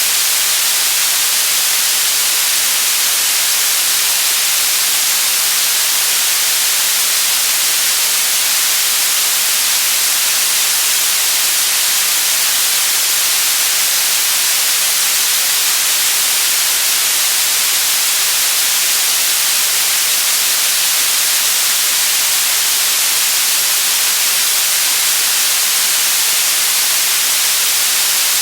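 Steady white noise: an even, unchanging hiss, bright in the highs.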